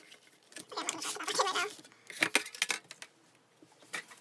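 CD album packaging being handled: plastic and cardboard rustling, with a few sharp clicks and taps about two seconds in and again near the end.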